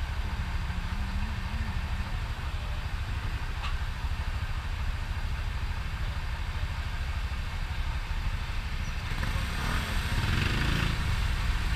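Motorcycle on the move: steady engine and road noise with a deep rumble, growing louder near the end.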